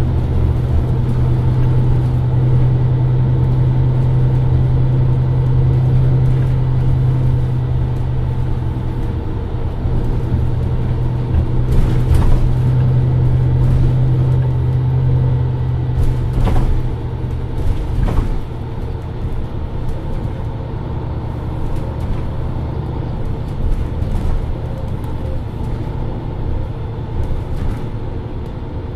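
MAN Lions City Euro 6 city bus's diesel engine running with a steady low hum. The hum drops away about two-thirds of the way through, leaving a lower, rougher rumble, with a few sharp knocks along the way.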